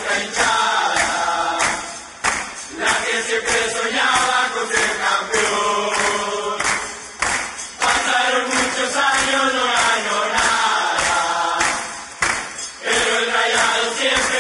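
A recorded song: a group of voices singing a chant-like melody over a steady, light percussion beat, with almost no bass.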